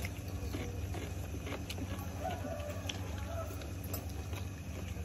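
Faint clinks of spoons against bowls and plates during a meal, with a chicken calling faintly twice in the background a couple of seconds in, over a steady low hum.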